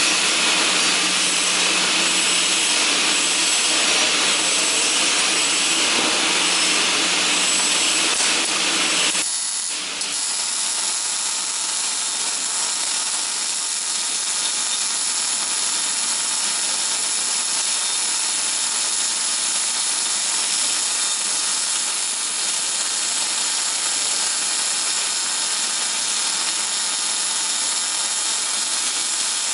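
Welding arc hissing steadily and continuously. About nine seconds in the sound changes abruptly to a slightly thinner hiss that carries on to the end.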